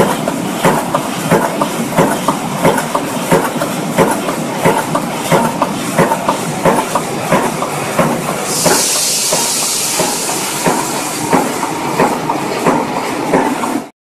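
Twelve-punch blanking and cupping press stamping cups from brass strip: a metallic knock about one and a half times a second, each stroke blanking and drawing a row of cups. A loud high hiss joins from about eight and a half seconds in and lasts a couple of seconds. The sound cuts off suddenly near the end.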